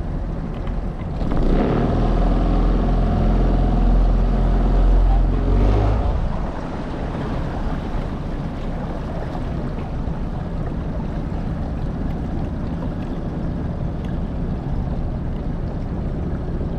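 Motorboat engine running steadily. From about a second in it swells louder for roughly five seconds, then settles back to an even run.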